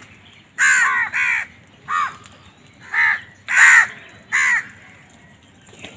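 A crow cawing: six short caws in quick succession, some in pairs, over about four seconds.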